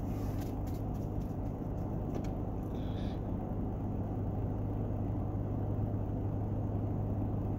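Steady low hum inside a car, with a few faint ticks of cards being handled in the first couple of seconds.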